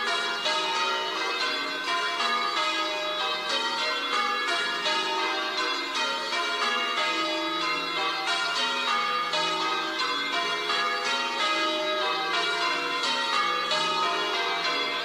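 Church bells pealing, a continuous run of strikes several a second, each bell ringing on over the next.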